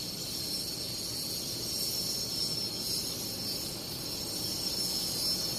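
Steady high-pitched drone of insects, even throughout, over a low background noise.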